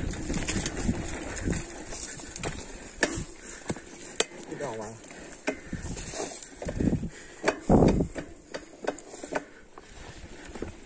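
Irregular clicks and knocks from a mountain bike rattling over rough ground, with a brief voice about halfway through and a louder burst just before the end.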